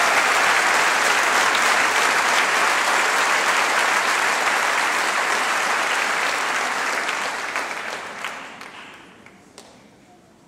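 Audience applauding, steady at first, then dying away over the last few seconds to a few scattered claps.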